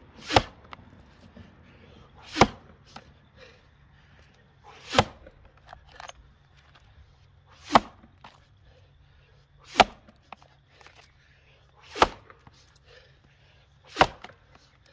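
Axe blows biting into a white pine log in an underhand chop: seven hard strikes, about two to two and a half seconds apart.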